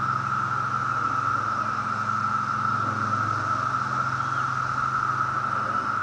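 Chorus of 17-year periodical cicadas (Magicicada): a steady, unbroken droning buzz. A low hum runs underneath.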